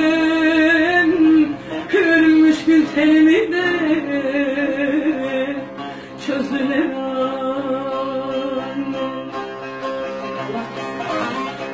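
A woman singing a Turkish folk song (türkü) in long, held, wavering notes, accompanied by a bağlama (saz) played by plucking. About halfway through her voice stops and the saz plays on alone.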